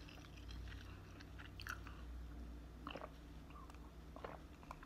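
Faint mouth sounds of a person sipping a drink from a glass: a few soft slurps and clicks scattered through, over a low steady room hum.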